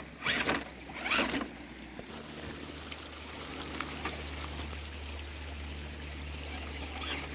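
Axial Deadbolt RC truck's electric motor and gears whirring as it crawls over roots. A few short scrapes come in the first second or so, then a steady hum settles in about two seconds in.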